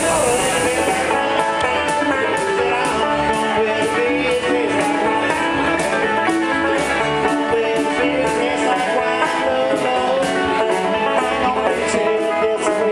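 Live bluegrass band playing a lively tune on banjo, mandolin, acoustic guitar, electric bass and drum kit, with a steady strummed beat. A hiss in the first second cuts off as the music takes over.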